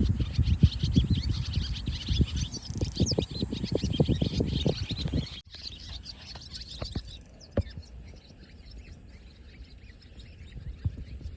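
Small birds chirping, busiest over a low rumble for the first five seconds or so; after a brief break the chirps become sparse and quieter.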